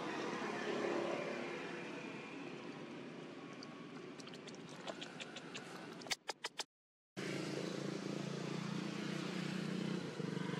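A steady engine drone with a low hum. About six seconds in it is broken by a quick run of sharp clicks and a half-second dropout to silence, then it resumes.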